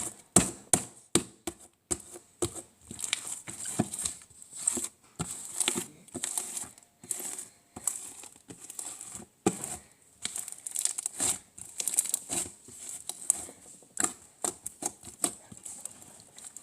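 Clear slime squished and worked by hand, giving irregular sticky clicks and pops of trapped air bubbles, several a second.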